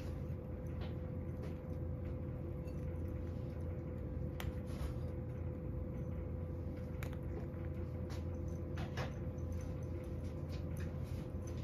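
A cat eating dry kibble from a bowl: scattered faint crunches and clicks, over a steady low background hum.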